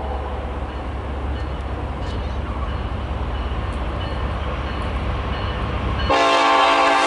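Train rolling past with a steady low rumble and rolling noise; about six seconds in this cuts off suddenly and a train horn starts blowing, a loud chord of several steady notes.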